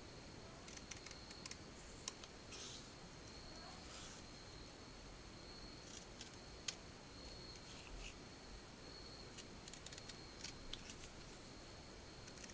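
KleenEarth scissors cutting through a paper note card: faint, irregular snips and clicks of the blades with brief rustles of the card.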